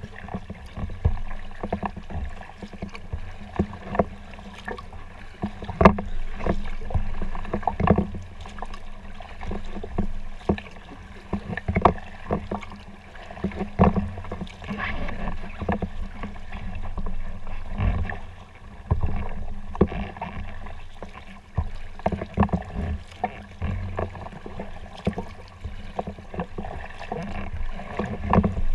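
Kayak paddling: paddle blades dipping and pulling through the water, a stroke about every one to two seconds, over a steady low wash of water along the hull.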